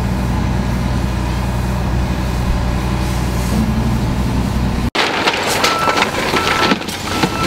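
Heavy truck engine running steadily. About five seconds in it cuts to clattering and crackling, with a short beep repeating a little faster than once a second, like a vehicle's reversing alarm.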